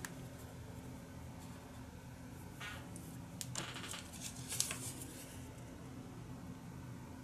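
Paper rustling and sliding in a few short scratchy bursts as a cut-out collage image is handled and laid on a watercolour sheet, over a steady low hum.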